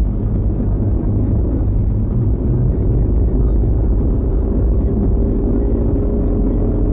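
Steady low rumble of a car on the move, engine and road noise as picked up by a dashcam.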